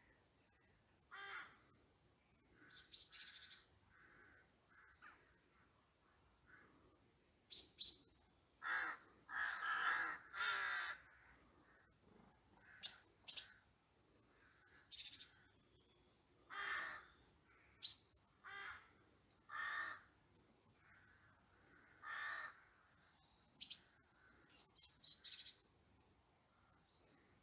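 Birds calling: a string of separate harsh calls, the longest and loudest about ten seconds in, with short high chirps between them.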